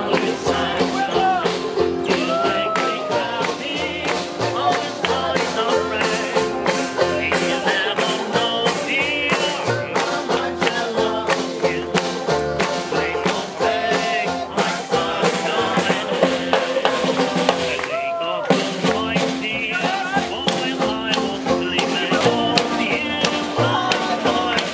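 Small acoustic swing band playing an uptempo number: clarinet over a steady snare-drum beat, with upright bass and banjo. The band drops out briefly about eighteen seconds in, then plays on.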